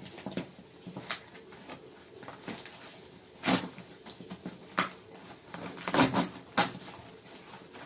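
Cardboard shipping box being handled and opened: scattered knocks, scrapes and rustles, the loudest about three and a half and six seconds in.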